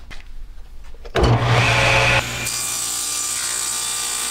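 Electric power saw starting suddenly about a second in and running steadily, sawing through wood-type board, with the sound turning into a steadier high hiss about two seconds in.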